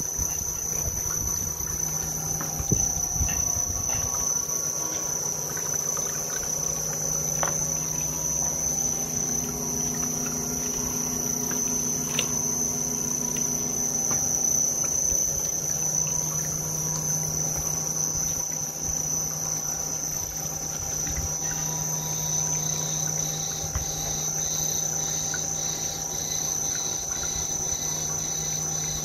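Dikmaksan DMS 2500 cold screw oil press running on safflower seed: its electric gear motor hums steadily under a constant high-pitched whine, with faint crackles and clicks from the pressing. A faint pulsing chirp about twice a second joins in near the end.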